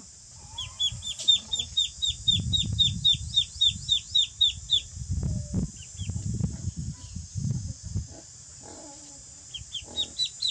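Ducklings peeping: a rapid series of high, falling peeps, about five a second, that stops about five seconds in and starts again near the end. A low rumbling noise runs underneath through the middle.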